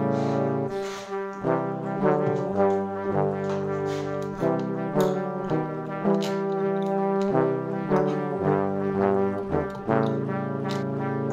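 Background music: sustained, brass-like chords whose notes change in a steady rhythm.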